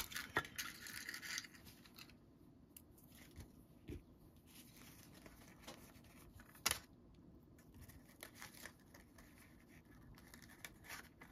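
Paper and string being handled at a craft table: soft rustling for about two seconds, then faint scattered taps and clicks, with one sharper click a little past halfway.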